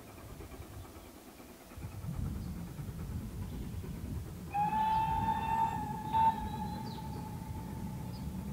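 Steam locomotive whistle sounding one long steady note about halfway through, over a low rumble, with a brief sharp knock during the whistle.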